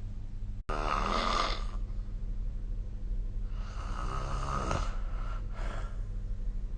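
A sleeping person snoring: two long snores with a fluttering rattle, about three seconds apart, then a shorter, weaker one. A steady low hum runs underneath, and the sound cuts out for an instant less than a second in.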